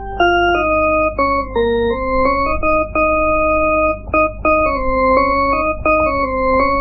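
Instrumental music on an electronic organ or keyboard: a melody of held notes stepping up and down, changing every half second or so, over a steady low bass.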